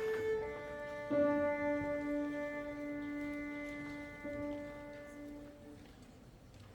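A melodic instrument playing a slow melody in long held notes, the note changing about a second in and restruck around four seconds, then dying away near the end.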